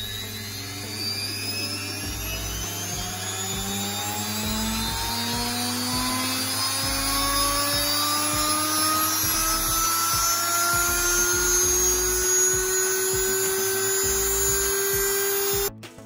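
Brushed washing-machine motor running on a speed regulator, its whine rising steadily in pitch as the speed is turned up. The sound cuts off suddenly near the end.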